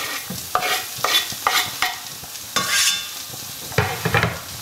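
Knife scraping chopped spring onions off a wooden chopping board into a non-stick wok: a run of sharp scrapes and knocks, the longest about two and a half seconds in, over the soft sizzle of egg whites frying in the pan.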